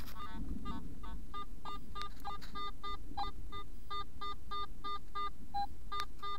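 Metal detector sounding repeated short target beeps, about three to four a second, mostly at one mid pitch with a few lower tones, as the coil sweeps back and forth over a buried target, which the detectorist takes for another pull tab.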